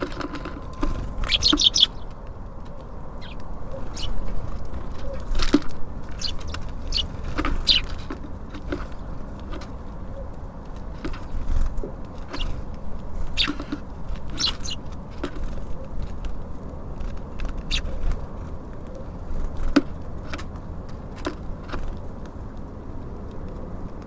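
Small birds at a feeder: scattered short, high chirps and calls, with sharp clicks and taps of birds pecking and landing on the feeder. A steady low rumble of distant traffic underneath.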